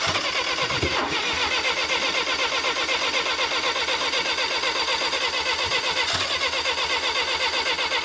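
Bobcat skid steer's carbureted gasoline engine cranking on the starter without catching, a fast, even chugging of compression strokes. It has spark and fuel but won't fire, which the mechanic puts down to ignition timing after turning the distributor.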